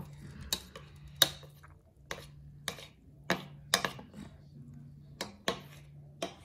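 A utensil stirring instant slime mix in a container, clicking against its side in about ten sharp, irregular taps.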